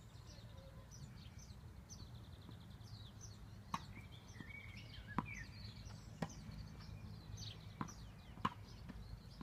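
Small birds chirping steadily, with a tennis ball knocking sharply about five times, roughly a second apart, from a little under four seconds in. A low steady rumble lies underneath.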